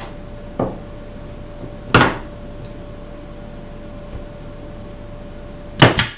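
Pneumatic nail gun on a red air hose firing nails into a glued wooden box: a small knock about half a second in, a sharp shot about two seconds in, and two quick shots close together near the end.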